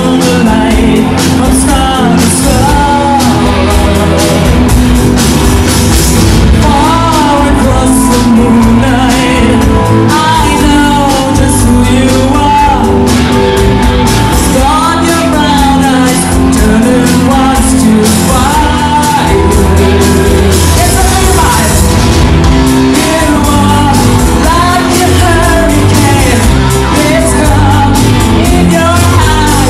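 Live rock band playing: a singer over electric guitars and drums.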